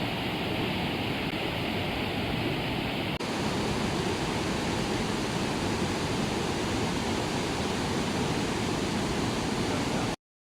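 Steady rushing of a waterfall, with a brief dip and a change in tone about three seconds in where the shot changes; it cuts off suddenly near the end.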